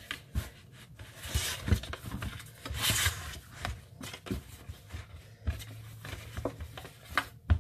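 Fingers pressing and spreading pizza dough in a metal baking tray: irregular soft rubbing and scraping with scattered light knocks.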